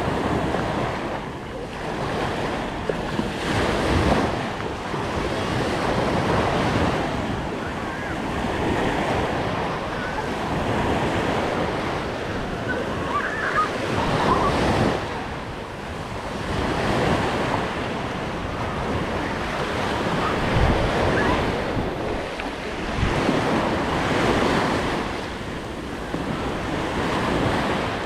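Small waves breaking and washing up onto a sandy beach, the surf noise swelling and fading every few seconds, with wind buffeting the microphone.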